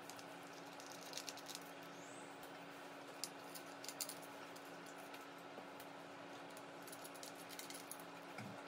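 Faint, scattered clicks and small metallic taps as tiny screws are worked out of a graphics card's backplate by hand, over a steady low hum.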